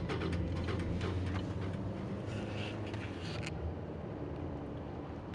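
Steady low rumble of a moving vehicle, with a few light clicks and knocks in the first few seconds.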